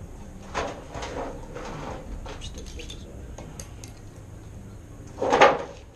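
Clinks and knocks of metal parts being handled while a rotary engine is turned over on its stand, with one louder clunk about five seconds in.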